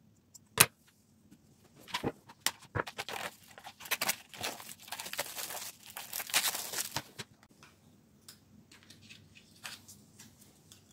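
A sharp snip of scissors cutting jute twine. Then several seconds of clicking and rattling as small wooden letter tiles in a compartment tray are handled, followed by a few light taps as tiles are set down on a board.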